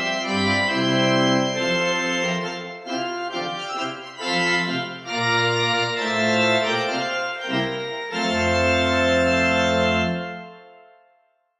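Background music on an organ: held chords over a moving bass line, fading out over the last second or so.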